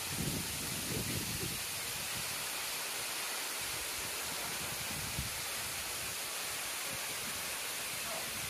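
Waterfall: a steady, even rushing hiss of falling water, with a few soft low swells near the start.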